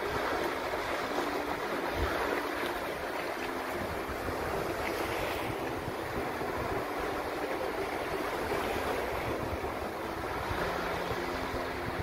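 Small waves breaking and washing over a shallow sandy beach in a steady surf, with wind buffeting the microphone in a low rumble.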